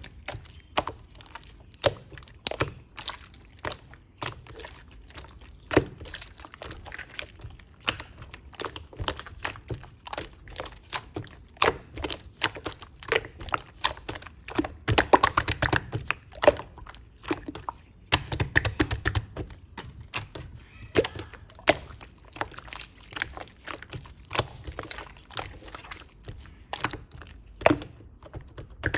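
White pongdang slime squeezed, stretched and pressed by hand, making a dense run of wet clicks and pops that grows busier and louder around the middle and again near the end.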